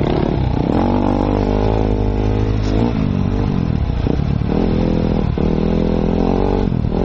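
Enduro dirt bike engine heard on board, pulling along a muddy trail with its note held steady in stretches. The throttle eases off briefly about three seconds in, again around four seconds, and just before the end.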